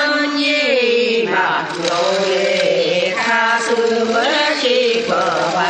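A voice singing a traditional Korean folk song in long, wavering phrases, with short breaks between them about a second in and again near the middle.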